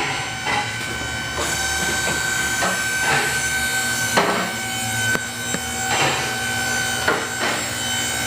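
A steady mechanical hum, with sharp metallic clanks at irregular intervals of about a second.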